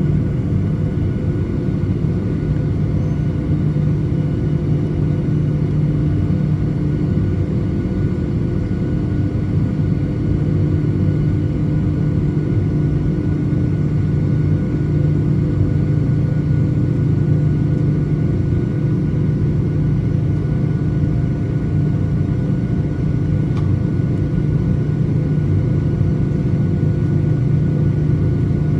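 Boeing 737-900ER's CFM56-7B jet engines running steadily at low power, a constant rumble with a steady hum of several tones and no spool-up.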